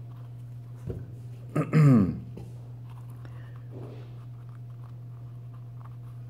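A man's brief wordless vocal sound, like a throat-clearing grunt, falling in pitch, about two seconds in, over a steady low hum.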